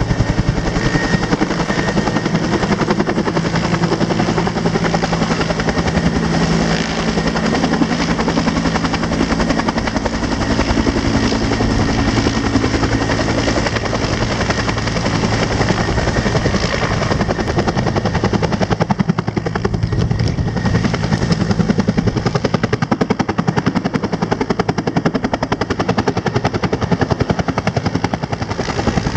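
Rescue helicopter running close by, loud and steady, its rotor beating rapidly over a constant engine tone.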